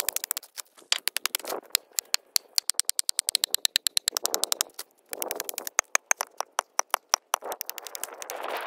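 Hatchet chopping pond ice: a fast run of sharp clicks and knocks as the blade strikes, with short bursts of crunching and scraping between them.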